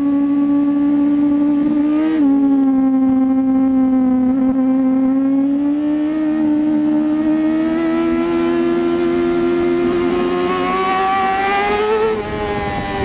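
Kawasaki ZX-6R 636 inline-four engine running hard at high revs, heard from on board the bike. The pitch jumps and dips briefly about two seconds in, then climbs steadily as the bike accelerates, and drops sharply near the end.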